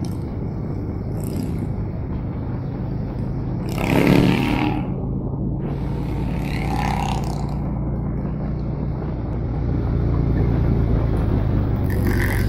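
Harley-Davidson touring motorcycle's V-twin engine running steadily under way, with wind rushing over the bike. About four seconds in there is a brief, louder rush of noise, and a smaller one comes near the end.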